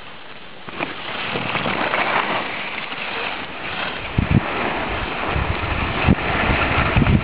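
Skis sliding downhill over snow with a steady hiss that grows louder about a second in, and wind buffeting the microphone with a low rumble and a few thumps from about four seconds in.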